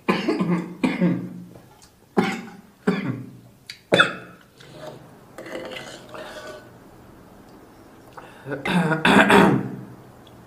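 Close-miked mouth noises from eating curry noodles: about five short, sharp bursts in the first four seconds, quieter sounds through the middle, and a louder cluster about nine seconds in.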